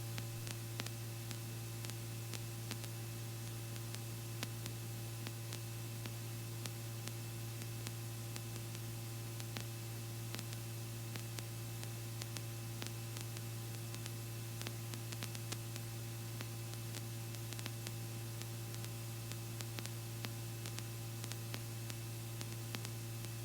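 Steady low hum with a faint hiss and light, scattered clicks on the Robinson R44 helicopter's intercom audio feed.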